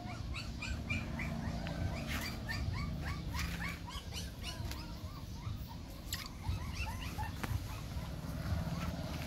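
Puppy whimpering: a run of short, high squeaks, several a second, with scattered sharp clicks among them.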